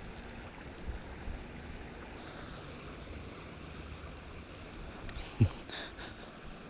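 Wind rumbling on the microphone, uneven and low. About five seconds in come a few faint clicks and one short, louder low sound.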